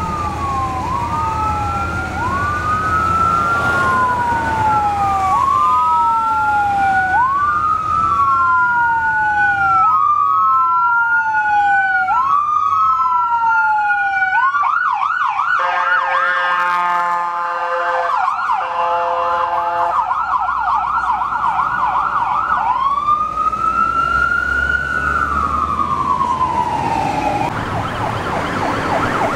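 Electronic emergency-vehicle sirens on responding police cars and an ambulance, cycling a rising-and-falling wail about every two seconds. About halfway through they switch to a rapid yelp mixed with steady horn-like tones, return to a slow wail, and go back to a rapid yelp near the end, over the low rumble of street traffic.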